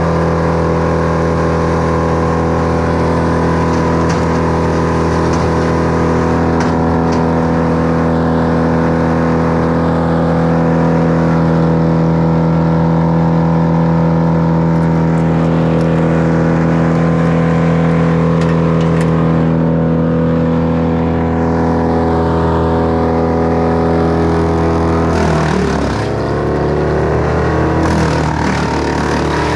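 Echo two-stroke chainsaw running at a steady high speed. Near the end its pitch dips sharply and climbs back up.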